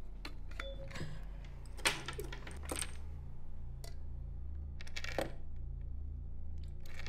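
Small metallic clinks and handling noises from a stainless-steel water bottle, with a sharp clink about two seconds in and a few short rustling bursts, over a steady low hum.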